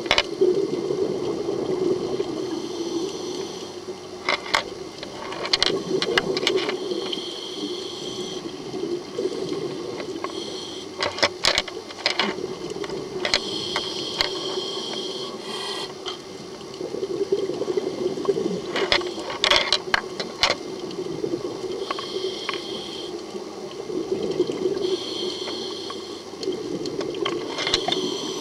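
Scuba diver breathing through a regulator underwater: a hiss on each inhale alternating with a crackling, gurgling rush of exhaled bubbles, repeating every few seconds over a steady low underwater rumble.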